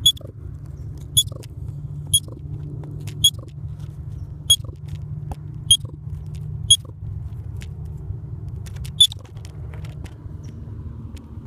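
Baby squirrel squeaking: short, sharp, high-pitched squeaks about once a second, eight in all with a longer gap before the last, over a steady low rumble.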